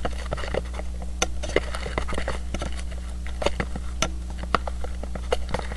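Scattered light clicks and taps from handling a taped mirror tube against a small object, over a steady electrical hum.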